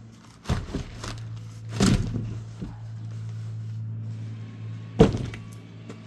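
Packing material and plastic wrap being handled and pulled off a steel roller cabinet: scattered knocks and rustles, with a louder knock about two seconds in and a sharp bang about five seconds in, over a steady low hum.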